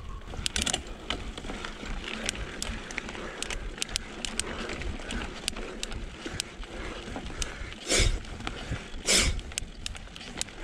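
Mountain bike climbing slowly up a steep dirt and root singletrack: tyres on dirt with many small clicks and rattles from the bike, and two louder short rushes of noise about eight and nine seconds in.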